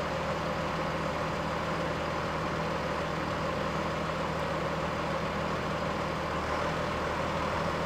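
Tractor engine running steadily with the PTO engaged, heard from inside the cab: an even, unchanging hum.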